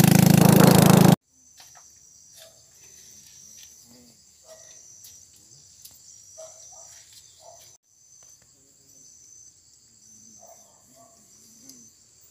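Motorbike engine with wind noise for about the first second, cutting off abruptly. Then insects chirping in a steady, high, pulsing trill, with faint soft sounds underneath.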